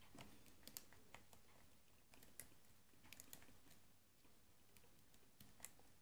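Faint, irregular clicks and ticks from a lock pick working the pins of a brass padlock under tension, the lock's serrated key pins catching as they are lifted.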